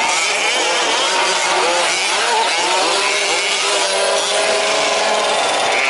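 Several 1/5-scale RC trucks' small two-stroke petrol engines revving together, their pitches rising and falling over one another.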